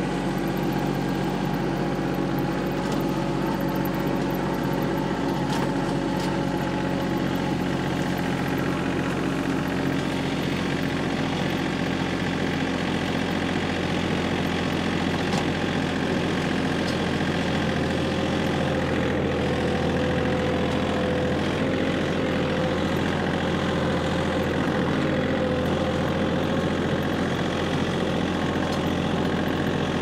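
A vehicle's engine running steadily at an even pitch.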